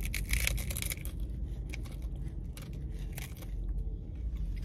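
Biting into a crisp hard-shell taco and chewing it: a dense crackle of breaking shell for the first second, then sparser crunches as she chews.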